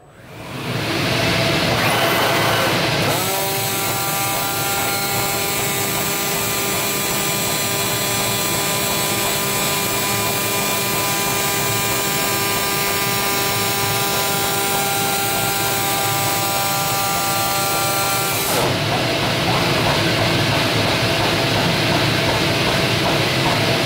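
Zund G3 3XL-3200 digital cutting table starting up: a loud, steady rushing noise comes up within the first second. A steady pitched whine joins about three seconds in and cuts off about eighteen seconds in, while the tool head travels along the gantry.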